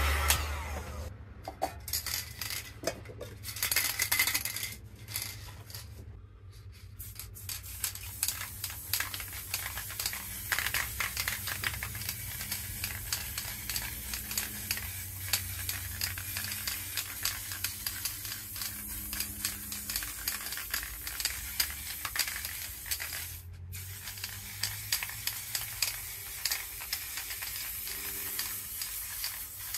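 Aerosol spray-paint can spraying: a hiss with fine spitting crackle, in short bursts at first, then almost continuous with one brief stop about three-quarters of the way through.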